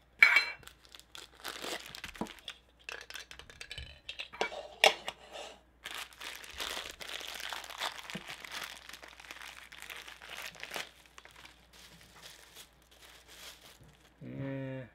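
Plastic packaging crinkling and tearing as a Funko Soda figure is pulled out of its black plastic bag and bubble wrap, with many small crackles. A loud sharp snap comes right at the start, and a short low hum from a man's voice near the end.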